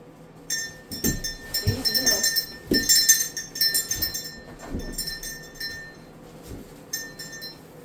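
Metal jingling and clinking from a goat's collar hardware, loudest about two to three seconds in, with several dull knocks mixed in.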